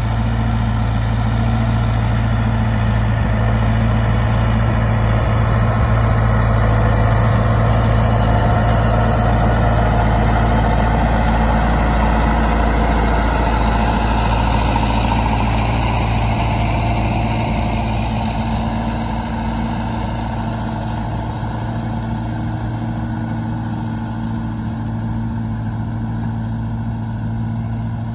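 Fortschritt ZT 323 tractor's diesel engine running steadily under load while pulling a Kverneland plough. It grows louder as the tractor passes close by, then fades slowly as it pulls away.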